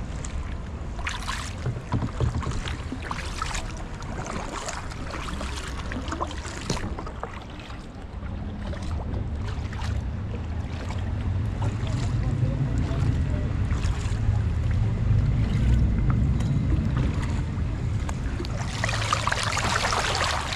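Kayak paddles dipping and splashing in the canal water, in short irregular strokes, over a steady low rumble of wind on the microphone. A louder rush of splashing water comes near the end.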